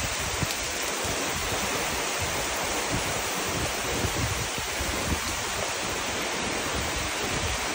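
Heavy rain pouring steadily in a dense, even hiss, with a low, uneven rumble underneath.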